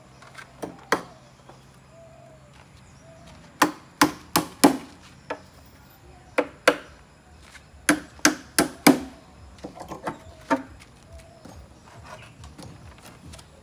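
Hammer blows on timber: nails being driven into planks to build wooden formwork. The sharp knocks come in quick groups of two to four strokes with pauses between, and the later ones are lighter.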